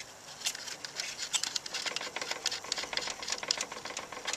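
Irregular light metallic clicks and taps of small hardware being handled as nuts are worked off studs on a sheet-metal stove.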